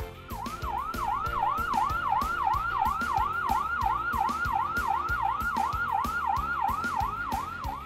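Fire engine siren on a fast yelp, its pitch swooping down and back up about three times a second, over background music with a steady beat.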